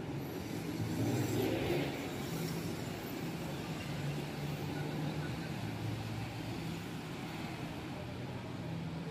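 City street traffic: vehicle engines running steadily below, with one vehicle passing louder between about one and two seconds in.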